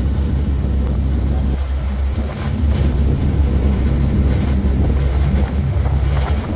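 Ferry engine running with a steady low drone, heard from the open rear deck, with wind gusting across the microphone a few times.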